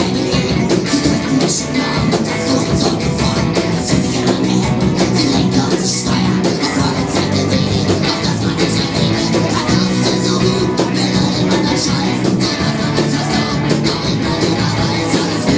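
A rock band playing live: guitars over drums, with frequent cymbal and drum hits.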